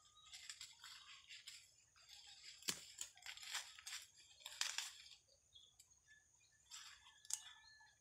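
Dry corn husks and leaves crackling and rustling in irregular bursts as ears are husked and pulled from dry stalks by hand, with one sharp snap about three seconds in.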